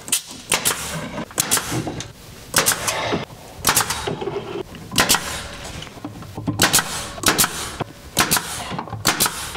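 Pneumatic 18-gauge brad nailer firing brad after brad, roughly one sharp snap a second, driving brads through a stair riser into the tread.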